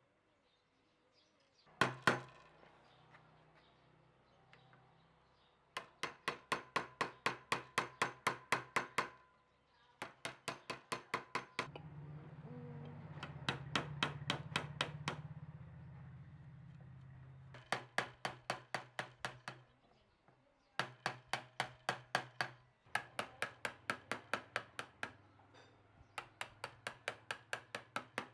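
A hammer striking rapidly in runs of about five blows a second, each run of a dozen or so blows followed by a short pause. A low steady hum runs under the blows and grows louder in the middle.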